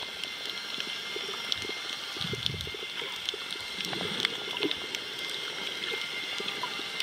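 Underwater sound on a coral reef: a steady watery hiss scattered with sharp clicks and crackles, with a low muffled rumble about two and a half seconds in.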